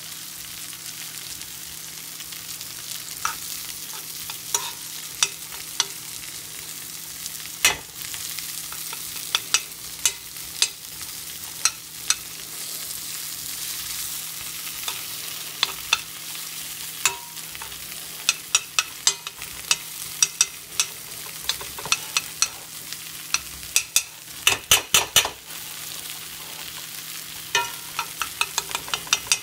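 Chicken and rice sizzling in a hot pan with a steady hiss while a utensil is stirred through it, clicking and scraping against the pan. The clicks come irregularly, with a quick run of them about 25 seconds in and again near the end.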